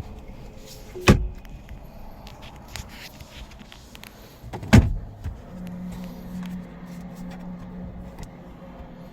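A 2016 Jaguar XF's door shut twice with loud thumps, about a second in and again just before the middle, followed by a steady low hum.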